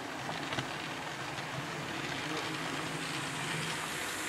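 HO-scale model train running on the layout: a steady mechanical hum and rolling wheel noise that grows slightly louder as the train approaches.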